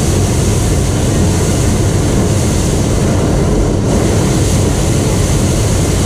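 Hot-air balloon's propane burner firing in one long continuous blast, a loud steady rushing noise that starts and stops abruptly.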